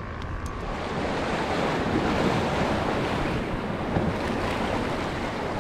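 Surf washing and breaking against the jetty's rocks, with wind buffeting the microphone.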